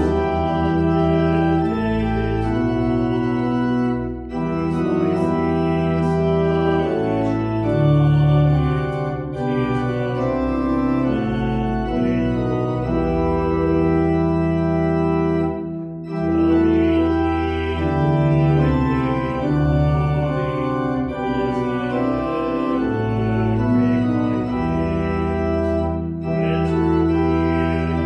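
Church organ playing a slow hymn in held chords, with short breaks between phrases every few seconds.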